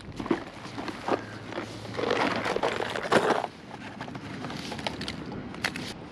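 Rummaging through a fabric backpack for a fish scale: rustling and scraping of the bag and the gear inside, with a few sharp clicks and knocks and a denser stretch of rustling in the middle.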